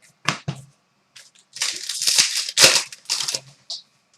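Hockey trading cards handled by hand: two quick clicks, then about two seconds of crisp crackly rustling as cards are slid and shuffled.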